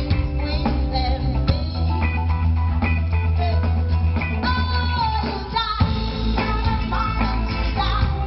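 Live band playing an upbeat song on drum kit, bass guitar, electric guitars and keyboard, with a woman singing at the microphone over it.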